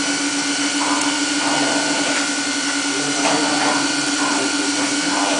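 Small electric blower of a rice husk gasifier stove running steadily, a constant hum with a higher whine over an airy rush.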